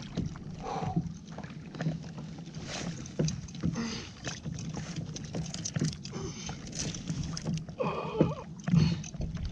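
Sea water slapping and splashing against a plastic Hobie fishing kayak's hull, with many short clicks and knocks from the rod, reel and gear, the loudest near the end. A short vocal sound comes about eight seconds in.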